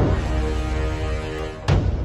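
Dramatic intro music: a heavy hit at the start and another about 1.7 seconds in, with sustained tones and deep bass ringing between them.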